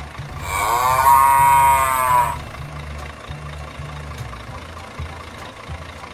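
A cow mooing once, a call of about two seconds that rises and then falls in pitch, over a steady low rumble.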